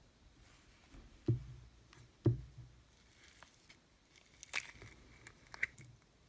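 Slime tubs and slime being handled: two dull thumps about a second apart, then a few sharp clicks.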